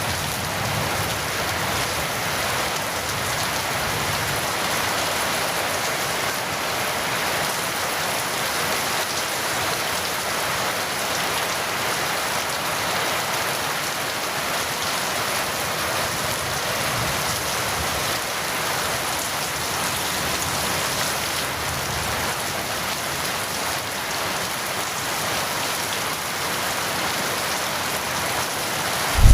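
Steady, heavy rain falling, an even hiss of drops on surfaces.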